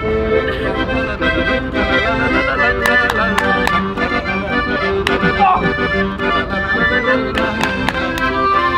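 Accordion music playing held chords over a light beat of sharp taps.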